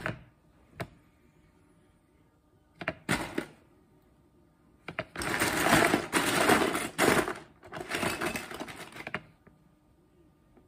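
Hands rummaging through loose Lego pieces in a plastic storage bin: a light click about a second in, a short clatter near three seconds, then about four seconds of steady rattling of plastic pieces that stops near the end.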